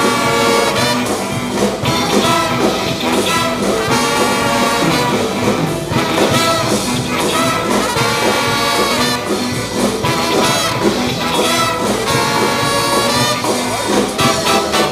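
Jazz ensemble playing with brass horns, trumpet and trombone, in a swing style.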